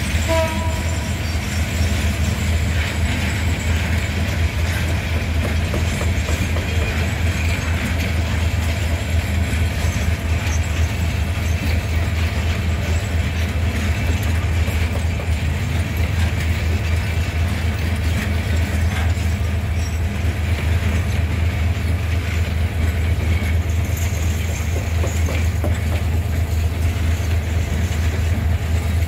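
Diesel locomotive's engine running steadily with a low, even rumble, the locomotive standing or barely moving.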